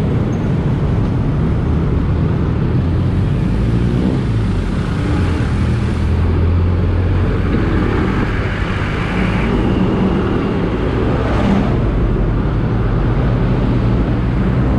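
Motorcycle engine running while riding in city traffic, its note rising and falling with speed over steady road and wind noise.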